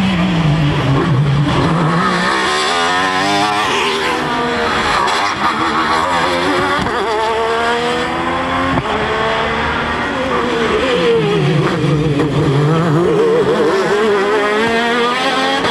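Alfa Romeo 155 V6 TI ITC touring cars' V6 racing engines running at high revs. The pitch climbs through the gears, drops back on the shifts and when lifting off, then rises again as the cars drive past.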